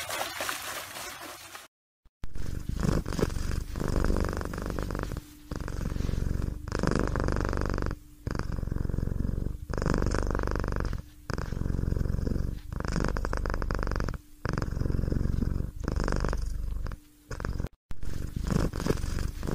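Water splashing briefly, cut off about two seconds in; then a cat purring in repeated breath cycles about a second and a half long, with short breaks between them.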